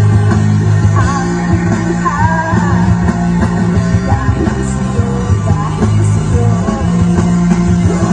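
Rock band playing loud live music, with a singer's voice over the instruments.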